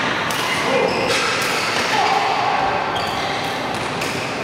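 Busy badminton hall: several sharp racket strikes on shuttlecocks from the surrounding courts, over a steady background of distant voices.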